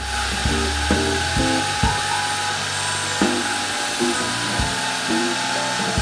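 Benchtop milling machine running with its drill bit cutting into brass: a steady hiss with a faint whine. Background music plays over it.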